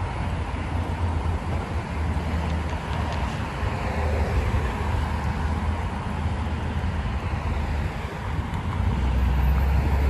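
Steady road traffic noise from cars passing on a multi-lane road, with a low rumble throughout that grows a little louder near the end.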